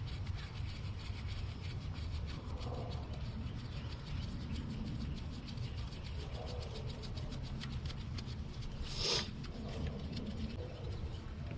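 Rapid light ticking and rubbing of a bolt being turned in by hand tool on the VVT solenoid, over a steady low hum. A short scraping rustle comes about nine seconds in.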